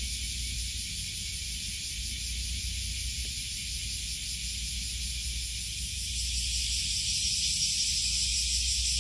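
Outdoor ambience: a steady high hiss over a low rumble, the hiss growing louder about six seconds in.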